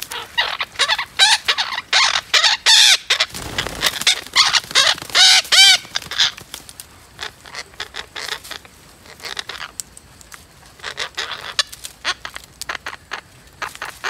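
Several parrots squawking in harsh, repeated calls, dense and loud for the first six seconds, then fewer and quieter.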